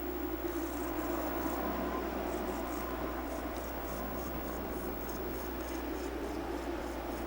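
Steady low hum under an even hiss, with faint uneven rustling: indoor room tone.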